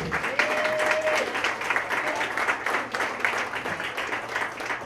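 Audience clapping and applauding in a small bar, one voice briefly calling out near the start, the applause thinning toward the end.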